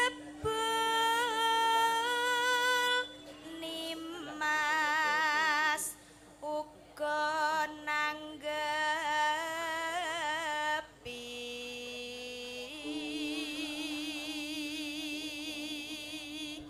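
A sinden, a female Javanese gamelan singer, sings unaccompanied through a microphone in long held phrases with wide vibrato, separated by short breaths. The last few seconds are softer, over a steady low hum.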